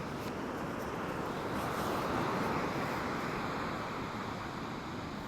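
Ocean surf washing ashore as a steady rush that swells about two seconds in, then eases off.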